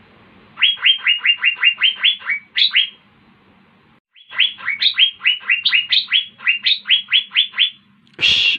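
Asian fairy-bluebird (cucak biru) singing: two rapid series of short, sharp upward-sweeping notes, about five a second, with a pause of about a second between them. Near the end a loud, harsh, hissing burst begins.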